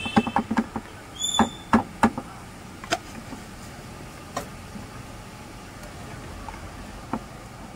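Clatter of sharp knocks and clicks, a quick run of about eight to ten in the first two seconds and then a few scattered ones, with two short high-pitched chirps near the start.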